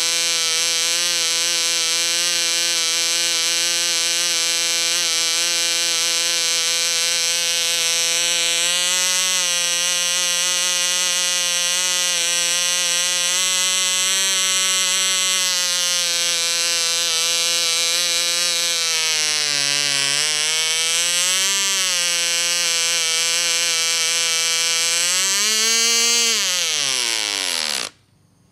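Model diesel (compression-ignition) engine with propeller running at steady high speed with a buzzing drone. Past the middle its speed dips and recovers, then it briefly speeds up and winds down quickly to a stop just before the end.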